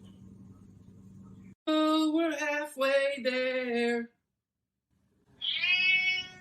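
Cat yowling: a string of loud, drawn-out cries lasting a couple of seconds, then a single rising-and-falling meow near the end.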